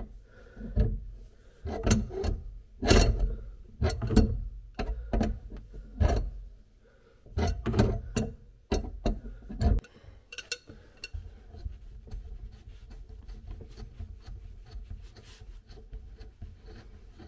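A hand tool loosening the nut on a dishwasher's water supply line: a run of knocks, clicks and scrapes for about the first ten seconds, then fainter scattered ticks.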